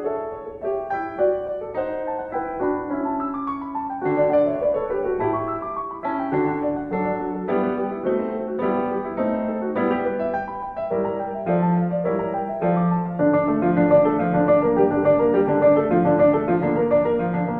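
Background piano music: a steady run of single notes and chords.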